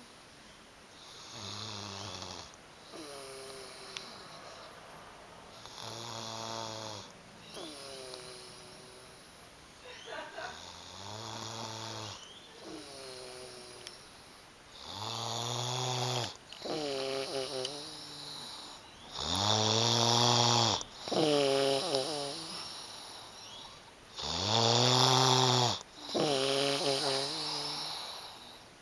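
A man snoring, each snore a rasping, pitched sound that rises and falls. The snores come in pairs, a longer one followed by a shorter one, about every four to five seconds. They grow much louder in the second half, loudest about 20 and 25 seconds in.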